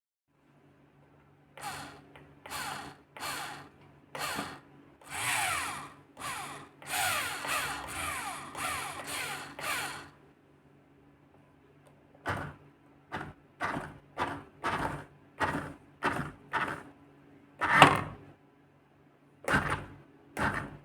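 Small electric motor whirring in about twenty short on-off bursts, each rising and falling in pitch; the bursts are longer in the first half and shorter and quicker in the second.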